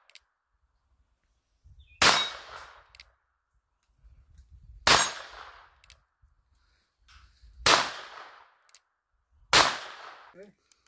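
Four shots from an Uberti 1871 Navy revolver in .38 Special. They come about three seconds apart at first, then two seconds apart. Each is a sharp crack with a short echoing tail, and there are faint clicks between the shots.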